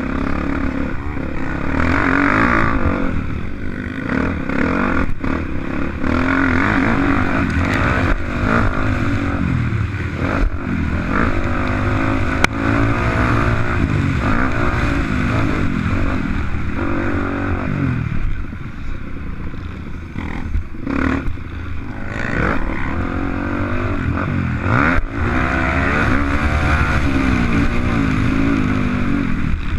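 Motocross bike's engine revving hard and falling back again and again as it is ridden around a track, with a few sharp knocks along the way.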